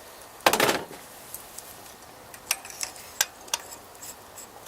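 A short loud burst of noise about half a second in, then scattered small metallic clicks and clinks as hand tools and spark plugs are handled.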